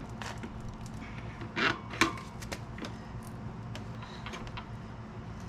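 Scattered clicks and knocks of metal bike parts and tools being handled, with two sharper knocks close together about a second and a half to two seconds in, over a low steady hum.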